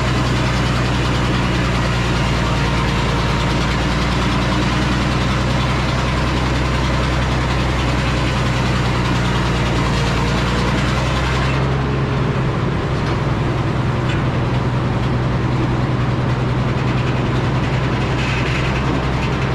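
Antique Frick sawmill running, its engine droning steadily with a broad hiss from the saw over it. About eleven seconds in, the higher hiss drops away and the engine note rises slightly.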